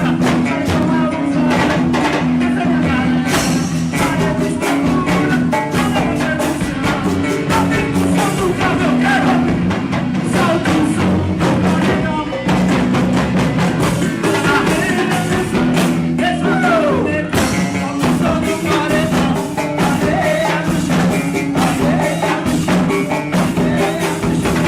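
Loud music with a singer over a steady drum beat and a strong bass line.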